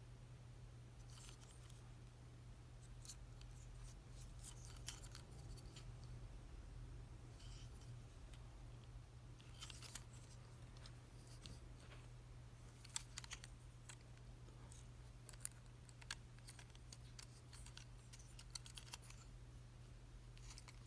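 Faint, irregular clicking and ticking of a Transformers Studio Series Sideswipe action figure's plastic joints and panels as it is turned and transformed by hand, with a few sharper snaps in the middle, over a low steady hum.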